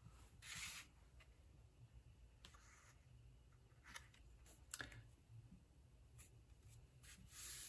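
Faint rustling and a few light ticks of cardstock being handled, laid down onto a card base and pressed flat by hand.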